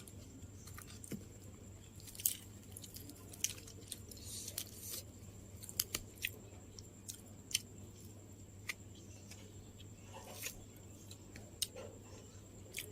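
Close-up chewing of food with irregular crisp mouth clicks and small crunches.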